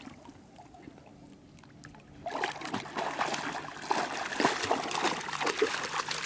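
A small dog splashing as it paddles and wades through shallow water. The splashing starts about two seconds in and goes on, busy and irregular.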